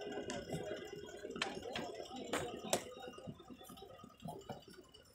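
A metal ladle stirring a large tub of fruit juice with soaked tokma seeds, knocking sharply against the container about five times in the first three seconds, over market background noise.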